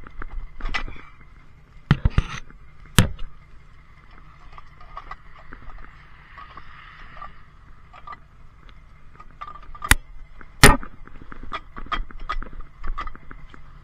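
Tow truck engine running steadily with a thin high whine, while metal gear clanks and knocks in a string of sharp hits, a few of them loud.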